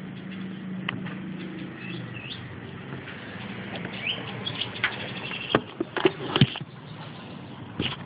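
European goldfinch giving a few faint, short chirps. Several sharp clicks and knocks, the loudest sounds, come about two-thirds of the way through, over a low steady hum.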